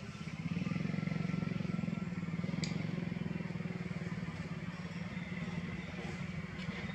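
A small engine running steadily with a low, fast, even pulse and no change in speed.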